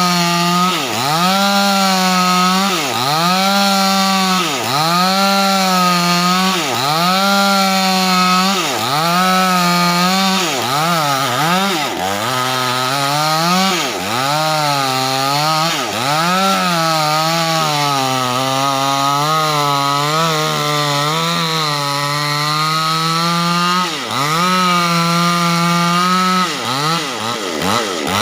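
Proquip mini chainsaw running under load while ripping a large wooden beam lengthwise. Its engine pitch sags and recovers about every two seconds as the chain bites, and drops lower for a long stretch in the middle.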